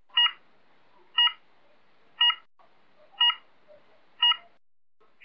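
Electronic race-start countdown timer giving five short beeps, one each second, counting down to a start.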